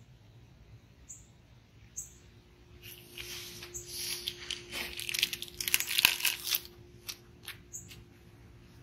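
Crinkling and tearing of the new mower drive belt's packaging as it is opened. The noise comes in a burst of rustling about three seconds in and lasts around three seconds, with a few light clicks scattered around it.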